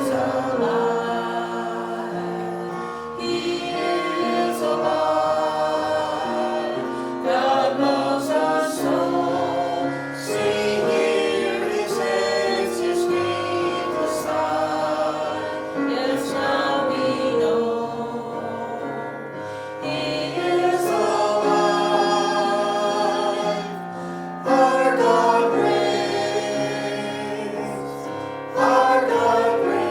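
Church worship team singing a worship song, several voices together in sustained, phrased lines.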